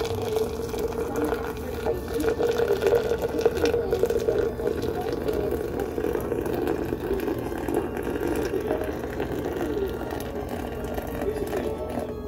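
Hot water pouring in a thin stream into a glass French press onto coarse coffee grounds, a steady splashing trickle, wetting the grounds so they bloom.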